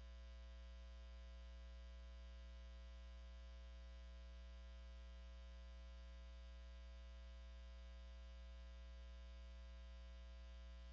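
Near silence with a steady, unchanging low hum, like electrical mains hum on the audio feed.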